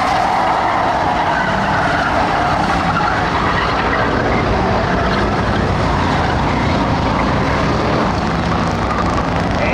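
A field of Ford Crown Victoria stock cars with V8 engines racing on a dirt oval, many engines running at once in a steady, loud blend, heard from the grandstand.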